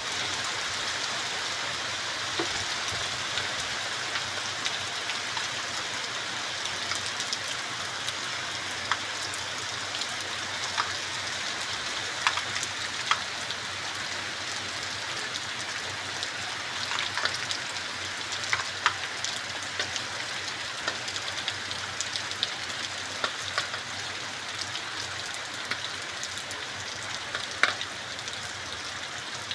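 Heavy rain falling steadily, an even hiss with frequent sharp taps of drops striking nearby surfaces.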